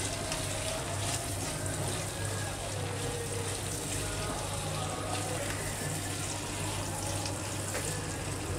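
Diced potatoes and ground spices sizzling steadily in hot oil in a nonstick wok, stirred with a silicone spatula, with faint scrapes of the spatula against the pan. The spices are being roasted (bhuna) into the potatoes.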